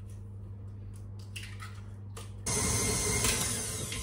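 An egg cracked into the mixing bowl, heard as a few small cracks and taps, then about two and a half seconds in the tilt-head stand mixer switches on and runs steadily, its paddle beating the egg into the butter and sugar.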